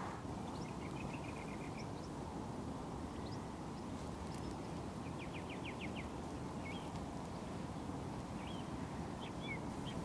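Quiet songbirds calling over steady low background noise: a short trill about a second in, a quick run of notes around five to six seconds in, and scattered single chirps.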